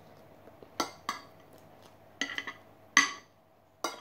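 Metal fork and spoon clinking against a plate while eating: about six sharp clinks at irregular intervals, a few of them close together a little past the middle.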